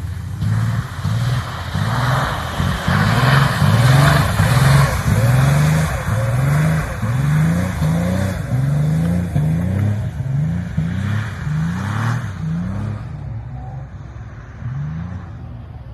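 Porsche engine revved over and over, its pitch climbing and falling back about once a second, fading a little near the end.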